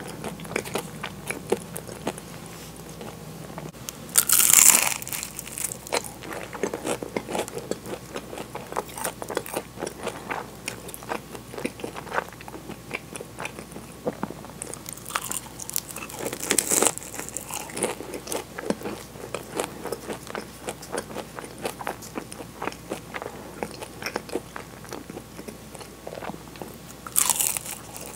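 Close-miked eating of flaky-pastry egg tarts: three crisp, crackly bites into the pastry, about four seconds in, around sixteen seconds and near the end. Steady chewing with soft mouth clicks runs between the bites.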